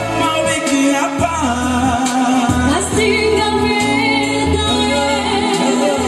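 A man singing a song into a microphone over amplified musical accompaniment with a bass line, joined by a woman's voice about four seconds in.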